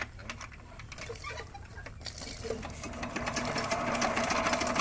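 Small electric motor of a homemade miniature farm-machine model running, a fast whirring clatter with a steady hum that grows louder about three seconds in.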